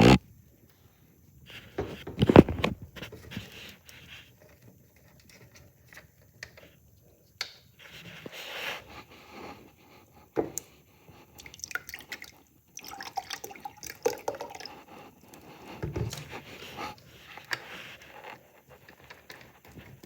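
A person breathing heavily, close to the microphone, in irregular breaths with a few short clicks between them.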